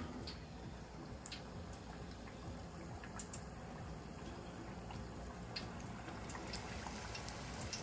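Faint sizzling and bubbling of hot oil in an electric deep fryer, with a few light clicks of a fork against a glass batter bowl. The sizzle grows louder near the end as a battered fish fillet is lowered into the oil.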